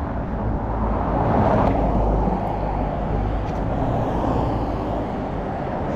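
Road traffic noise from a vehicle passing on the street: a rushing tyre-and-engine sound that swells to a peak about two seconds in, then settles to a steady hum with a low rumble underneath.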